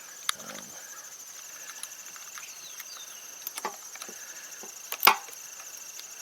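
Scattered sharp clicks of small tools and metal hardware being handled at the motorcycle's battery terminals, the loudest about five seconds in, over a steady pulsing trill of insects.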